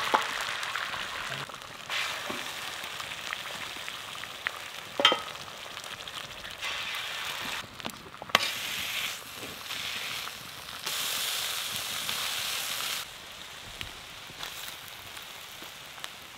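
Eggs frying in plenty of oil on a griddle over a fire: a steady sizzle that jumps up and down in loudness in abrupt steps, with a few sharp clicks.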